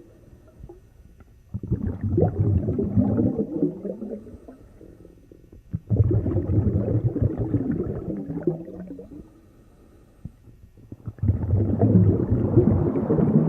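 Underwater bubbling and gurgling with a low rumble, coming in three surges a few seconds apart with quieter gaps between.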